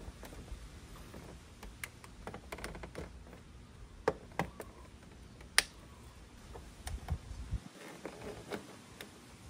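Plastic body panel of a Yamaha TMax 500 scooter being pressed and clipped back into place by hand: scattered sharp plastic clicks and snaps with faint rubbing between them. The loudest snap comes about five and a half seconds in.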